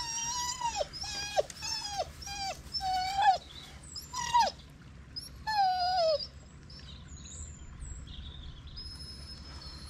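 A dog whining: a quick run of short, high whines, each dropping in pitch as it ends, then two more a little later, the last one longer and sliding down.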